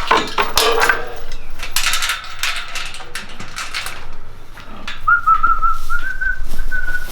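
Scattered knocks and clatter, then about five seconds in a person whistles one held note, wavering at first and then steady, for about two seconds.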